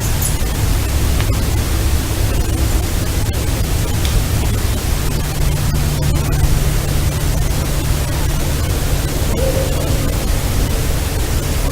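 Steady hiss and static from a heavily amplified outdoor field recording, over a low hum. A faint, brief tone rises out of it about nine seconds in.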